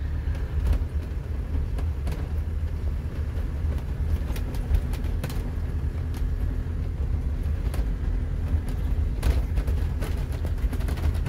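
An 8.7 m tag-axle motorhome driving along a narrow lane, heard from inside the cab: a steady low rumble of engine and road noise, with scattered light clicks.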